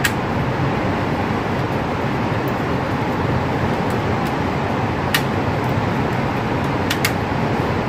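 Steady rushing noise of an indoor shooting range's ventilation, with a few sharp clicks, two of them close together near the end.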